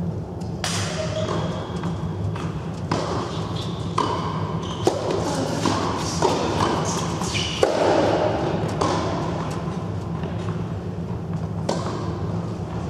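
Tennis rally on an indoor hard court: a string of sharp racket strikes and ball bounces, each with a short hall echo, over a steady low hum.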